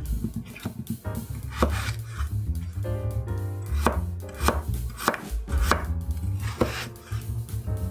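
Kitchen knife cutting a peeled raw potato and striking a bamboo cutting board, in a steady series of cuts about every half second.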